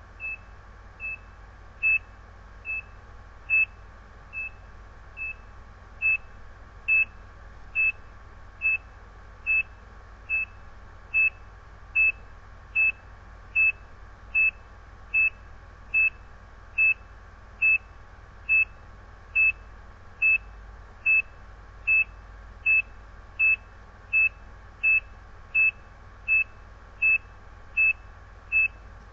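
ECG patient monitor's heartbeat beep: a short high tone sounding once for each detected heartbeat, evenly spaced at about 70 a minute, marking a steady, regular pulse.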